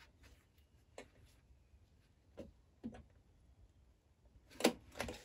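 Light, scattered clicks and taps as a zipper is handled and plastic sewing clips are clipped onto it along clear vinyl, with a louder cluster of clicks near the end.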